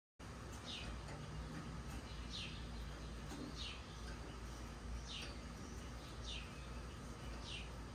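A bird repeating a short, high chirp that falls in pitch, about once every second and a half, over a faint low hum.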